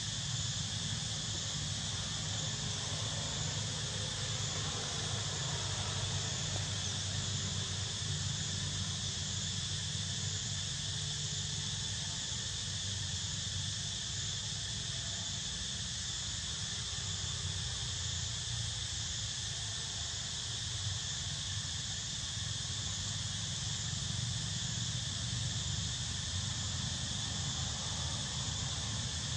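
Steady high-pitched drone of an insect chorus, over a low steady rumble.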